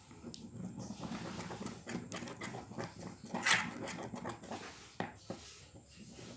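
Glue and food colouring being stirred in a bowl for slime: a continuous sticky, squelching scrape with small clicks, and one louder swish about halfway through.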